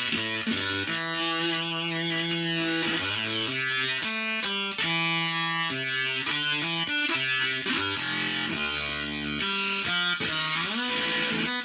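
Electric guitar played through a Behringer octave divider pedal and a fuzz pedal: distorted single notes and held notes, with a slide up in pitch near the end. The repaired octave divider is passing sound.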